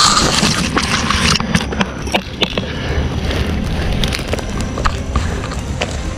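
Grass and brush rustling against the handheld camera for about the first second and a half, then scattered crunching footsteps and twig snaps while walking through brush, over a low steady rumble.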